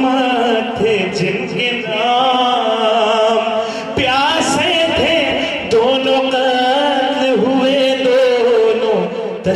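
A man chanting into a microphone in long, drawn-out melodic lines, his held notes bending slowly in pitch, as in sung recitation.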